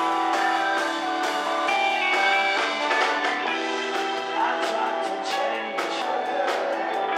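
Rock band playing live: strummed electric guitars over bass guitar and drums, with the drum and cymbal strokes coming thicker in the second half.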